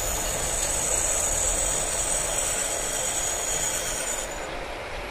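Lathe running with the power feed engaged, its boring tool cutting inside a gear bore: a steady mechanical hum with a high whine that drops out about four seconds in.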